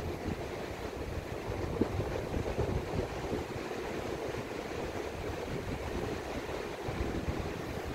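Wind buffeting the microphone over a steady wash of ocean surf, as an uneven low rumble.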